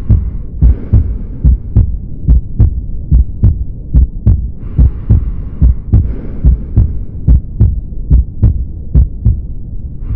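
Human heartbeat heard through a stethoscope: paired lub-dub beats at about 75 a minute over a steady low hum, with a faint hiss that comes and goes a few times.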